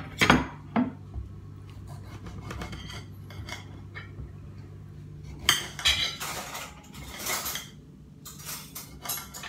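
Kitchen knife carving a roasted duck on a ceramic plate: sharp clinks against the plate in the first second, then rasping, scraping cuts in the second half, over a low steady hum.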